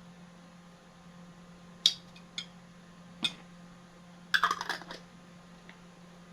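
Small tabletop handling sounds: three separate sharp clicks or taps, then a short burst of crackling about four and a half seconds in, as a salsa dip jar and snack chips are handled. A steady low hum runs underneath.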